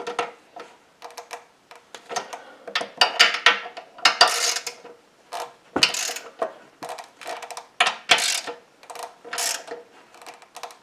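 Hand socket ratchet clicking in repeated short bursts, one per back-and-forth stroke, as it snugs the valve cover bolts on a Kohler SH265 small engine.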